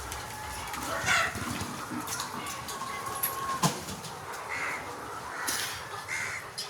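A flock of Sonali hens clucking, with short calls every second or two over a steady murmur of the flock. One sharp knock sounds about halfway through.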